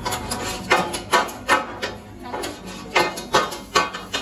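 A run of sharp knocks and clacks from kitchen utensils, about two to three a second, unevenly spaced.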